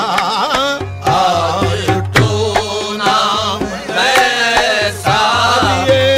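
Qawwali: a voice sings wordless, ornamented melodic runs over hand-drum strokes and sustained accompanying tones.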